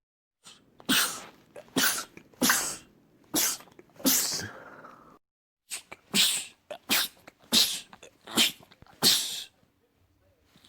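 A man sneezing again and again: about ten sharp sneezes in quick succession, roughly one every 0.7 seconds, with a short silent gap about halfway.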